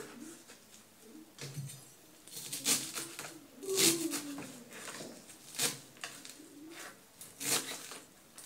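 Kitchen knife chopping fresh coriander on a cutting board: about five sharp cuts at uneven intervals, the loudest a little under four seconds in.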